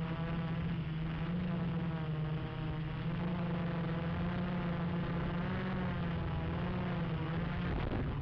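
Gaui 330X multicopter's electric motors and propellers buzzing steadily in flight, a low drone with higher tones that waver up and down as the motor speeds shift.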